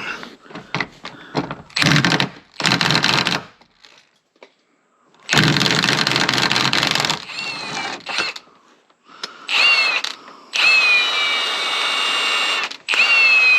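Cordless power tool with a 10 mm socket run in about six short bursts, backing out a seatbelt mounting bolt. The later bursts carry a high motor whine that rises as the tool spins up.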